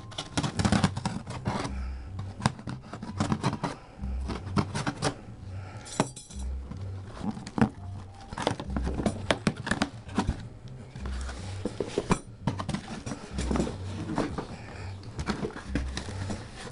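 Cardboard and plastic packaging being handled and opened by hand: a dense, irregular run of clicks, scrapes and rustles. A repeating bass line from background music runs underneath.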